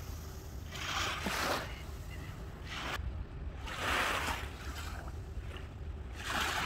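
Small waves washing up onto a sandy shore, a short swish every second or two, over a steady low wind rumble on the microphone.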